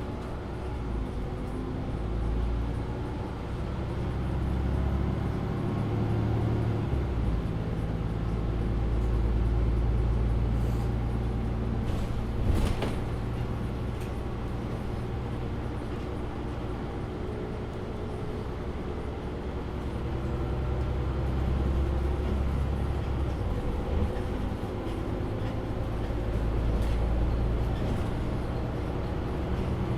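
Cabin sound of a MAN Lion's City A37 city bus underway: the engine and drivetrain hum steadily, swelling and easing as the bus speeds up and slows, with one sharp knock about twelve seconds in.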